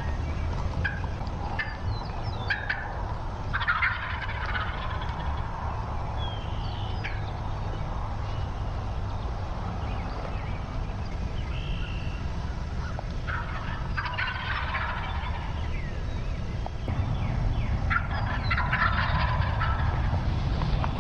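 Wild turkey toms gobbling repeatedly at close range. Bursts of gobbles come several times, loudest and densest near the end.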